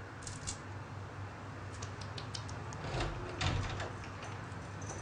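Quiet room tone with a steady low hum, a few faint clicks and a soft rustle about three and a half seconds in.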